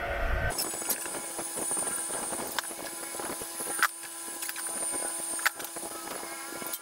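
Hard plastic parts of a new shop vac being handled and fitted together: scattered light clicks and knocks, three of them sharper.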